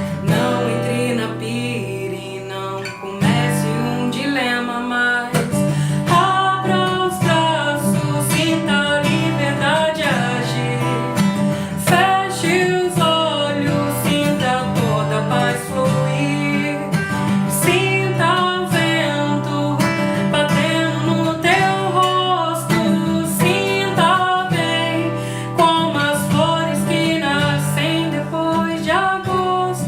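A woman singing a song to strummed acoustic guitar.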